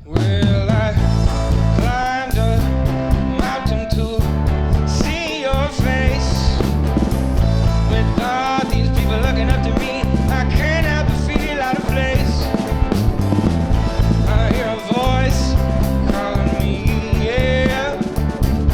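Rock band playing live, with a pulsing bass and drum low end under a wavering, bending lead line. The full band swells back in right at the start after a brief dip in level.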